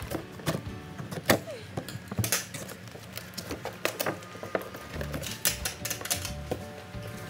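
Scissors and handling of a cardboard-and-plastic toy box: a run of sharp, irregular clicks, snips and rustles as the packaging is cut and opened, over faint background music.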